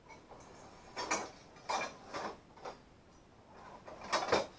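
Pieces of metal stock clanking and clinking as they are picked up and moved about: several separate knocks with a short metallic ring, the loudest pair near the end.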